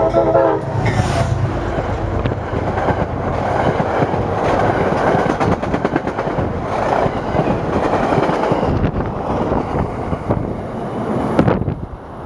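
Metro-North Hudson Line train passing close by on the adjacent track: the locomotive's steady low hum as it goes past, then a loud steady rumble with wheels clattering as the coaches roll by, easing off near the end as the last car clears.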